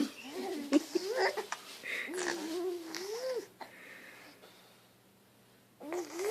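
High, wavering vocal sounds: a string of drawn-out tones that glide up and down, stopping about three and a half seconds in and starting again just before the end.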